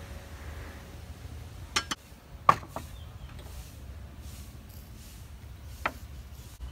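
A handful of sharp knocks and clinks of cooking utensils against ceramic bowls and a wooden cutting board: two quick ones, a louder one about two and a half seconds in, and one more near the end, over a steady low background rumble.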